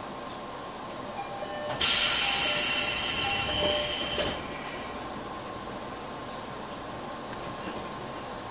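Steady onboard sound of a JR 205 series 600 subseries electric train. About two seconds in, a sudden loud rush of noise breaks in, fades over about two seconds and cuts off.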